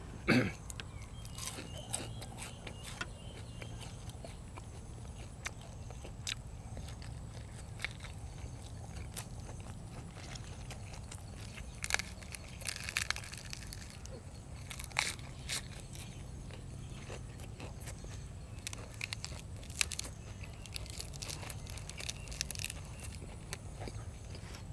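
A person chewing food close to the microphone, with irregular crisp crunches and mouth clicks that come in small clusters.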